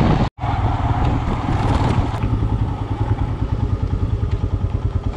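Royal Enfield Himalayan's single-cylinder engine running while riding, with a steady pulsing thump. The sound drops out briefly just after the start. From about two seconds in, the rushing noise fades and the engine runs slower, with a more even, pronounced beat.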